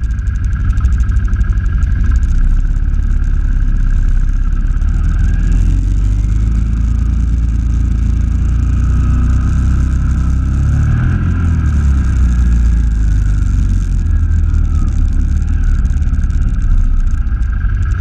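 ATV engine running steadily as the quad wades through floodwater, with water splashing and sloshing around it. About ten seconds in, the engine note briefly rises and falls.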